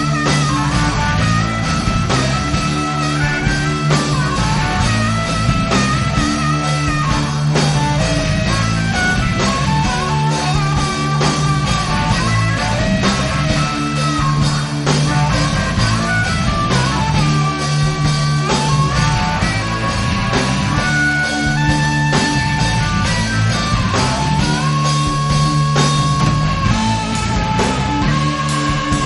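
Rock music with electric guitar, bass and drum kit, a guitar melody held over a steady bass line.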